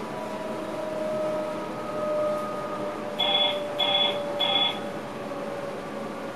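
Inside an electric passenger train's driver's cab: steady running hum with a thin whine that slowly falls in pitch. About three seconds in, a cab alert sounds three short beeps, evenly spaced about half a second apart.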